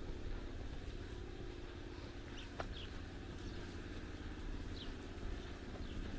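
Street ambience: a steady low traffic hum, with a few short bird chirps scattered over it.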